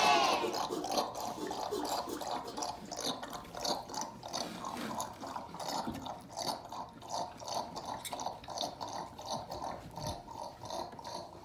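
A pet pig drinking water from a stainless steel bowl, with rhythmic wet slurping and lapping sips.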